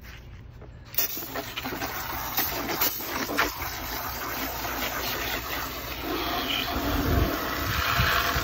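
Water spraying from a garden hose's pistol-grip nozzle, switched on suddenly about a second in and running as a steady hiss. A few low thumps near the end.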